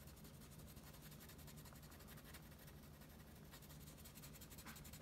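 Faint scratching of a wax crayon rubbed on paper in quick back-and-forth strokes, over a low steady hum.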